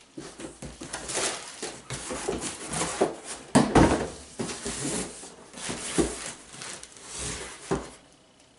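Cardboard boxes being shifted and handled: rustling and scraping of cardboard with several dull knocks, the loudest a little under four seconds in.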